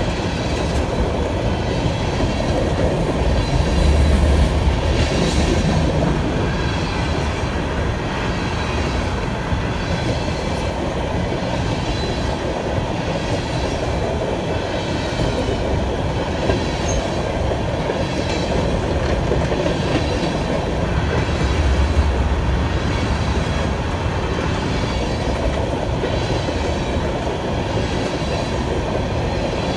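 Loaded coal hopper cars of a heavy freight train rolling past: a continuous rumble of steel wheels on rail, swelling louder about four seconds in and again about twenty-two seconds in.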